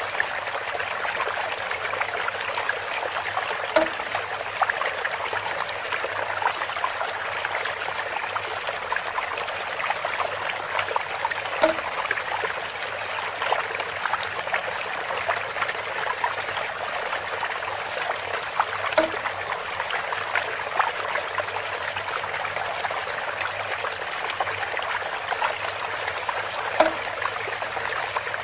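Water trickling steadily through a bamboo spout. About every seven to eight seconds there is a short pitched knock, four in all.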